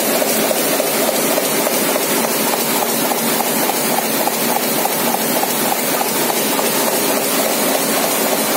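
Komori Lithrone 426 four-colour sheetfed offset printing press running, a loud, steady mechanical clatter with a regular beat as its rollers turn.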